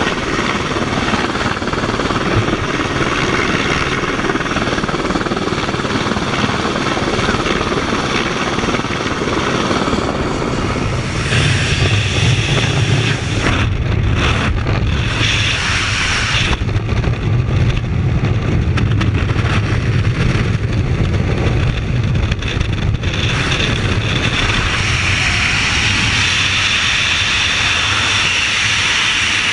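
Helicopter noise and rushing air as skydivers hang from the helicopter's skid, then the steady, heavy roar of freefall wind over a camera microphone carried by a falling skydiver, changing to a deeper rumble about a third of the way through.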